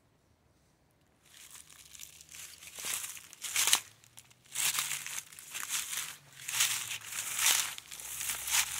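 Footsteps crunching through dry leaf litter, starting about a second in and going at about one step a second.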